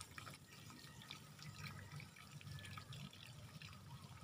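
Faint trickling and dripping of water from a black plastic water line, with small scattered clicks from hands working at a joint in the pipe.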